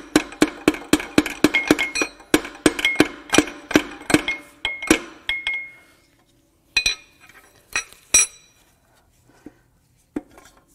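Rapid hammer taps, about four a second, driving a connecting rod and piston out of a cylinder bore of a Cummins 5.0 turbo diesel V8, each strike ringing metallically. They stop about five seconds in and are followed by a few separate metal clinks.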